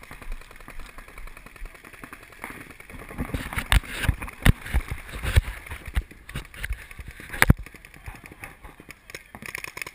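Paintball markers firing rapid strings of shots, with sharp cracks thickest through the middle and the loudest single crack about two-thirds of the way in.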